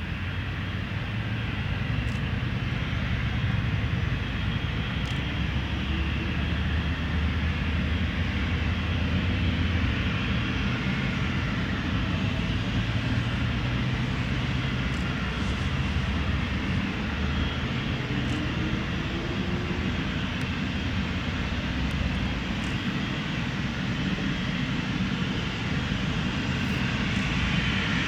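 Embraer ERJ-195's twin General Electric CF34-10E turbofan engines running steadily: a deep rumble under a broad jet roar.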